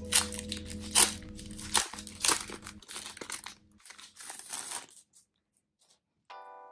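Packaging being torn open and crinkled: several loud rips in the first two and a half seconds, then softer crinkling that stops about five seconds in.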